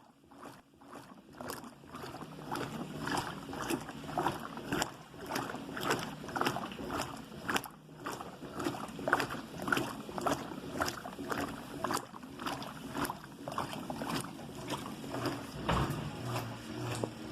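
Washing machine in its wash cycle: water and laundry sloshing in the turning drum in quick, irregular splashes over a steady low hum. Quieter for the first couple of seconds, then louder.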